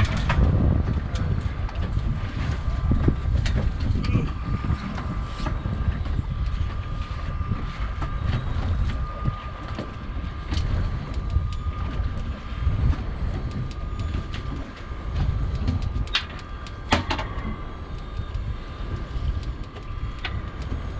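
A boat's motor running with a steady low rumble and a thin, steady whine above it, mixed with wind buffeting the microphone and a few scattered sharp clicks.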